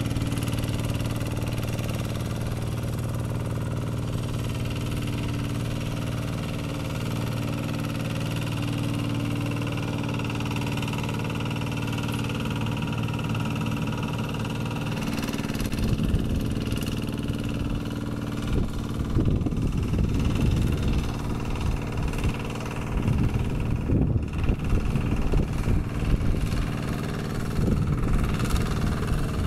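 Kubota RD110Di-2T 11 hp single-cylinder diesel on a two-wheel hand tractor, running steadily under load while working a muddy rice paddy. About halfway through the sound turns uneven, with irregular louder bursts.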